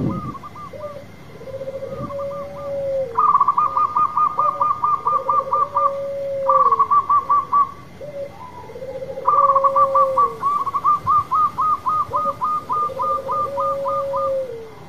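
Zebra dove (perkutut) song: long, low, drawn-out coos that fall at the end, repeated about every three to four seconds, and loud runs of quick, higher staccato notes, about six a second. A short thump comes right at the start.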